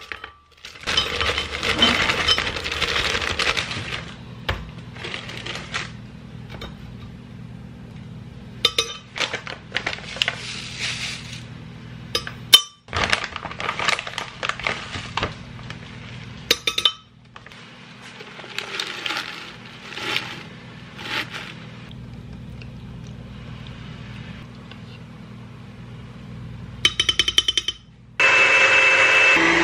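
Frozen strawberries, a frozen banana and other smoothie ingredients are dropped and shaken from bags into a glass blender jar, with clinks, rustling and a sharp knock near the middle. Near the end the blender switches on and runs loudly.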